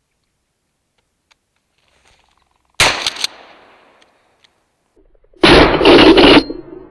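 Two shotgun shots fired at flushing mountain quail, about two and a half seconds apart. The first is a sharp crack with a short echo. The second is louder and lasts about a second.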